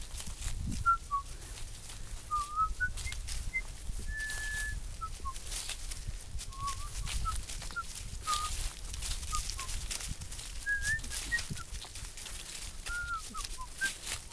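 Footsteps crunching through dry fallen leaves, with many short high chirps and one longer whistle-like note scattered among the steps.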